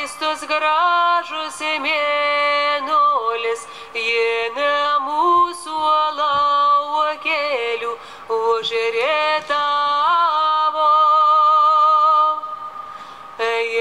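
A woman singing a slow melody as the film's background song, gliding between long held notes, some with a wavering vibrato.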